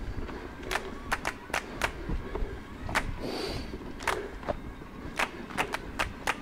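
Mountain bike rolling over a bumpy trail: irregular sharp knocks and rattles from the bike over a steady low rumble of tyres and wind.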